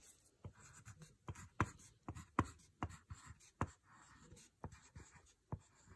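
Crayon writing letters on paper: a string of short, faint scratchy strokes and taps at an irregular pace, roughly one or two a second.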